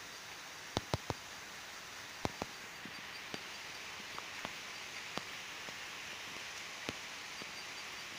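Steady faint hiss with light, sharp clicks scattered through it, three close together about a second in: fingertip taps and handling on a smartphone's touchscreen while navigating.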